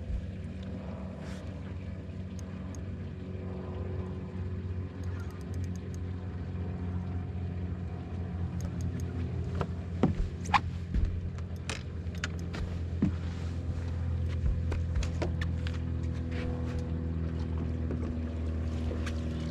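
A boat's motor hums steadily while a hooked bass is reeled in and landed, with scattered sharp clicks and knocks, the loudest about 10 to 13 seconds in.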